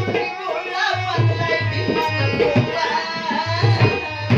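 A male shahir singing a Marathi Bhim geet, his voice wavering over a repeating hand-drum beat with a steady drone-like accompaniment.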